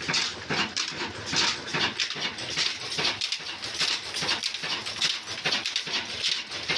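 Old Ruston diesel engine running steadily, its exhaust beating in an even rhythm of about three to four chuffs a second.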